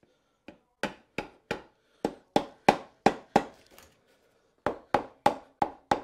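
Hammer tapping on the aluminium gearbox housing of a BMW K100 to loosen it from the engine: a run of about nine sharp taps at about three a second, a short pause, then five more.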